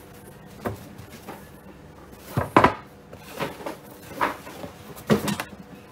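A black cardboard gift box and its ribbon being handled: a series of short knocks and rustles, the loudest about two and a half seconds in.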